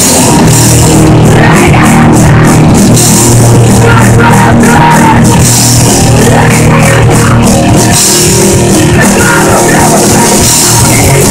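Live punk rock band playing loud and fast, with distorted electric guitars and a full drum kit.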